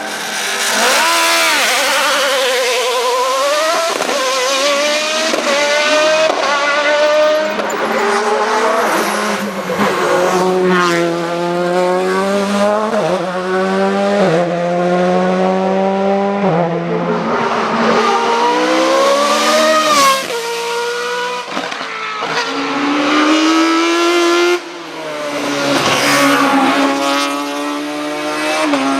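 Hillclimb racing car engine at high revs, pitch climbing hard and breaking at each gear change, then falling back as the throttle is lifted, over and over. The level drops sharply about 25 s in.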